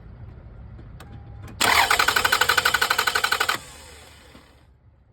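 Car engine cranking on its starter for about two seconds without firing: a fast, even 'jig, jig, jig' that stops abruptly, with no catch. This is a dry start, the sound of an engine that is turning over but getting no fuel.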